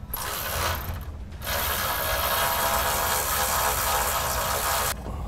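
Ratchet wrench running on a bunk-bracket bolt of a boat trailer, loosening it so the worn carpeted bunk board can come off. A short spell, then a longer steady rattling run of about three and a half seconds that stops suddenly.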